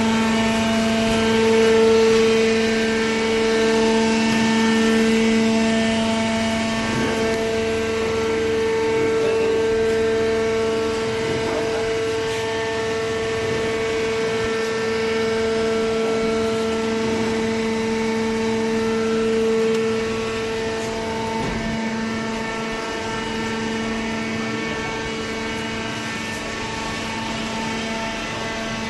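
Hydraulic cardboard baler's power unit running: the electric motor and hydraulic pump give a steady, even hum-whine that eases slightly about twenty seconds in.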